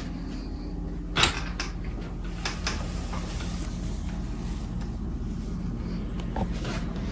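Household handling sounds: one sharp knock about a second in, then lighter clicks and knocks, over a steady low hum.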